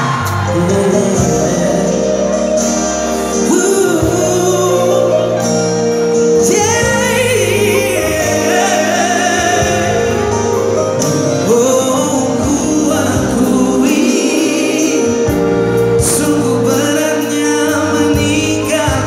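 Live pop band of electric guitar, electric bass, drums and keyboard playing through a PA, with singing over it that holds long, wavering notes.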